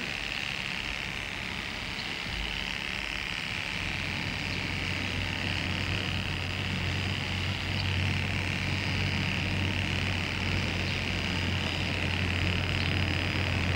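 Corded electric hair clippers buzzing steadily as they shave a man's head, the buzz growing stronger a few seconds in.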